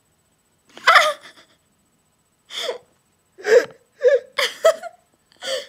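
Girls laughing: a loud, gasping burst of breath about a second in, then short breathy giggles in quick bursts through the second half.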